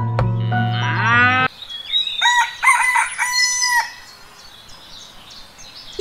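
Background music with a rising slide, cutting off about a second and a half in. About half a second later a rooster crows for roughly two seconds, a run of call notes, and then only a low background remains.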